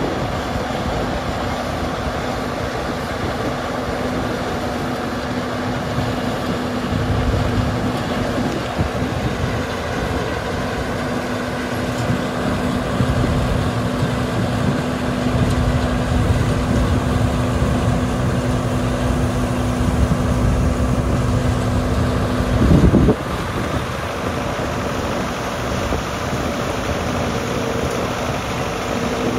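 Peanut harvester running steadily, a continuous mechanical noise with an engine-like hum, louder briefly for about half a second roughly three-quarters of the way through.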